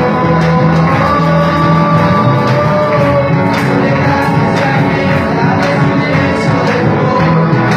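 Rock music played by a band, with steady drum hits under held notes and a singing voice.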